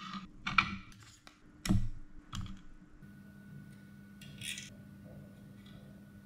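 Small clicks and taps of metal tweezers and a tiny flight-controller board being handled on a rubber workbench mat, the loudest about two seconds in. After that, a faint steady hum and one short scrape about four and a half seconds in, as the tweezers work the motor connectors off the board.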